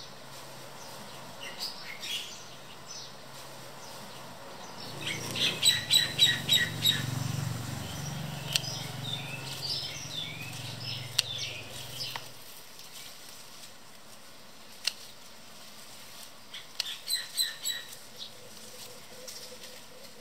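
Small birds chirping in quick runs of short notes, about five or six a second, twice. Under the first run a low hum swells and stops about twelve seconds in; a single sharp click comes near the middle.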